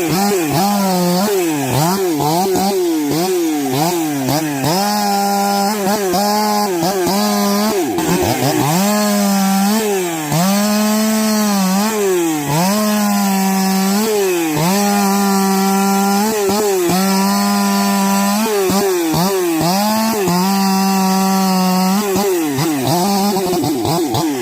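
Husqvarna two-stroke chainsaw running at high revs while cutting wood. Its engine note dips and recovers about once a second at first, then holds steady for several seconds at a time, with short drops in between.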